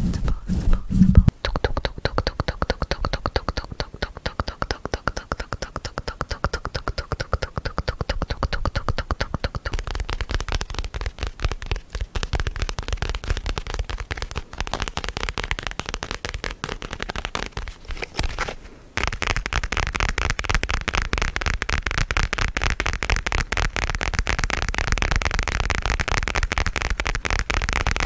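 Close-miked ASMR trigger sounds: a fast, continuous run of crackling clicks, broken off briefly about eighteen seconds in and brighter after the break.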